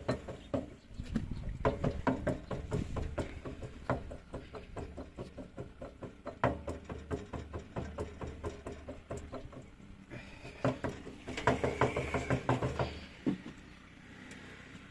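Single-cylinder R192 diesel engine of a walk-behind tractor running with a steady, rapid knocking. The owner traces the knock to side play in the crankshaft at the flywheel end, calling for new crankshaft bearings. The running and knocking die down near the end.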